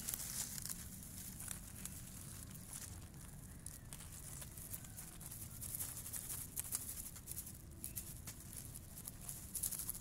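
Dry grass stems rustling and crackling close by in irregular bursts, over a low steady rumble.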